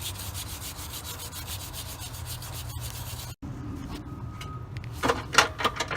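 Wire brush scrubbing a battery cable terminal clean, quick back-and-forth strokes about five or six a second, clearing the corrosion from a loose ground connection that kept the starter from cranking. It stops abruptly about three seconds in, and a few sharp metal clinks follow near the end.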